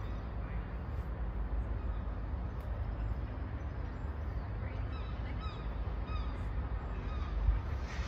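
Steady low outdoor rumble, with a few short bird calls about five to six seconds in.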